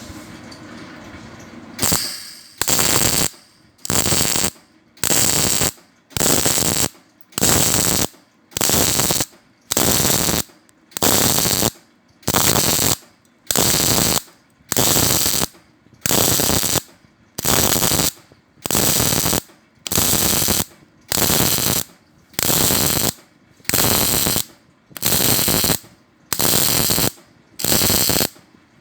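MIG welding arc crackling in short, even bursts about once a second, the torch trigger pulled and released over and over as in stitch welding, starting about two seconds in.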